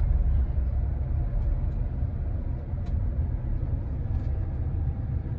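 2019 GMC Sierra pickup braking to a stop: a low, steady road rumble that gradually fades as it slows, with no roaring or grinding from the front brakes, now cured by a new rotor and pads.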